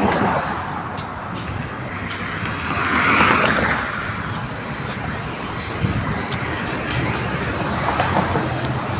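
Road traffic noise from passing cars, steady apart from one louder swell about three seconds in.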